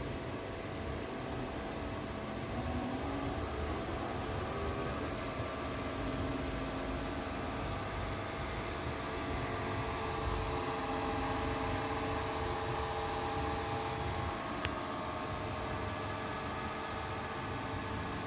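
AC servo motor run by a Mitsubishi MR-J3-350A servo drive under test, spinning with a steady whining hum. Its pitch shifts a few times as the command voltage to the drive is changed.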